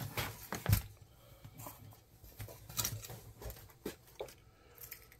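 Handling noise from a wooden cigar box being picked up and held out: a few light knocks and taps, the loudest about a second in and near the middle, with soft rustling between them.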